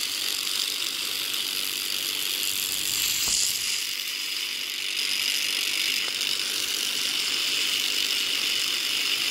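Electric toothbrush buzzing steadily while held against tomato flowers, shaking them to release pollen the way a bee's buzz does.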